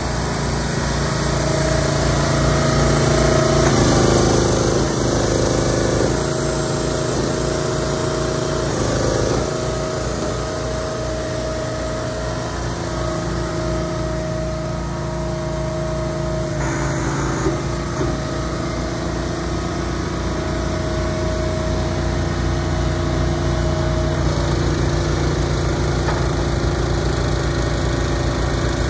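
An engine running steadily on the building-delivery trailer rig, holding one pitch throughout and a little louder a few seconds in.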